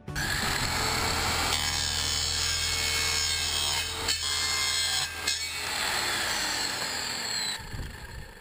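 A 190 mm electric mitre saw running and cutting through carbon-fibre tube, a harsh steady cutting noise over the motor's hum, with a couple of brief dips. About seven and a half seconds in the cut stops and the whine falls away as the blade winds down.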